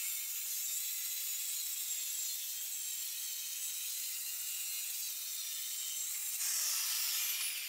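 Circular saw ripping lengthwise through a thick rough oak board, a first shallow pass with the blade set about 1¼ inches deep. The blade cuts steadily with a high whine and gets louder for about the last second.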